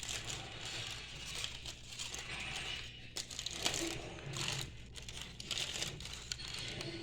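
Paper crinkling and rustling in irregular bursts, with some tearing, as from a fast-food bag or sandwich wrapper being handled, over a steady low hum.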